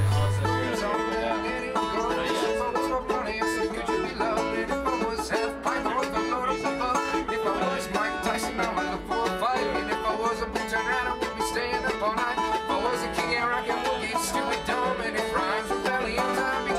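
Acoustic bluegrass string band picking an instrumental, with banjo out front and mandolin. A low hum from the intro cuts off under a second in.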